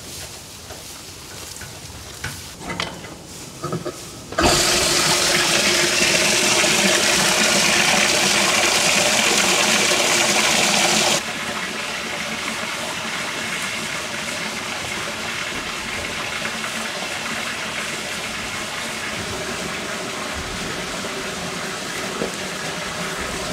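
Water gushing into a cattle water trough. It starts suddenly about four seconds in and drops to a quieter steady flow about seven seconds later.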